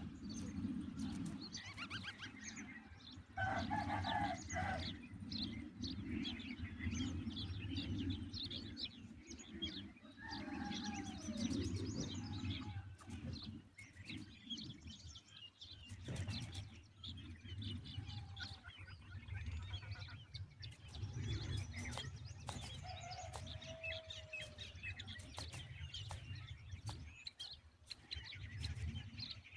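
Birds chirping and calling in many short, high notes with a few longer trills, over a steady low rumble.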